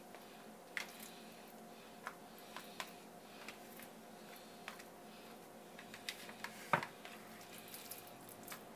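Fingers working minced raw tuna in an aluminium tray: soft wet squishes and scattered light clicks and taps, the loudest a sharp knock about two-thirds of the way through, over a faint steady hum.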